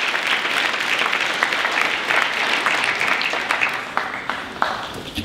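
Audience applauding, the clapping thinning out to a few scattered claps near the end.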